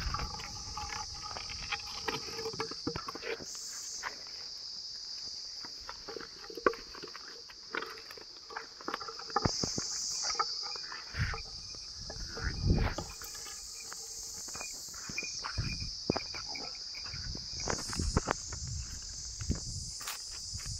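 Steady high-pitched insect drone that swells several times, over scattered steps of water buffaloes walking on a dirt path.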